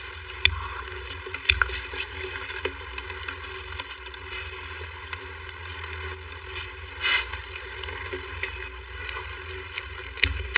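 Close-miked eating sounds of soft mousse cake: wet mouth sounds with sharp clicks of the spoon at the mouth and on the cake, over a steady low hum.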